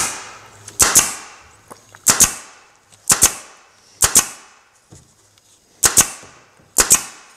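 Upholstery staple gun firing staples through jute webbing into a wooden chair frame: seven sharp cracks, about one a second.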